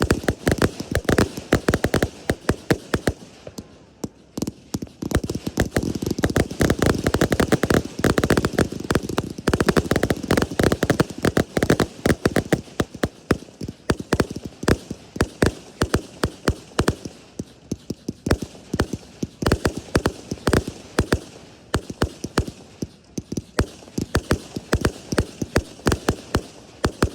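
Fireworks going off in a dense, unbroken run of sharp pops and bangs, many a second.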